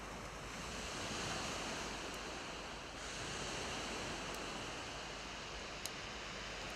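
Surf washing on a shingle beach: a steady rushing noise that swells and eases twice, with a few faint ticks.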